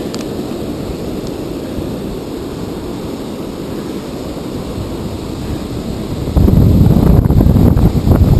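Wind rumbling on the microphone over waves washing onto the beach. About six seconds in it turns much louder as a stronger gust buffets the microphone.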